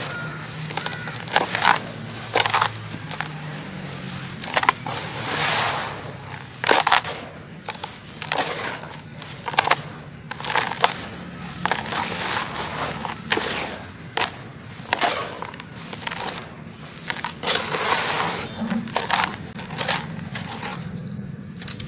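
Charcoal-coloured sand-cement chunks crumbling and breaking apart in water: a run of sharp crunches about once a second, with longer gritty crumbles between them.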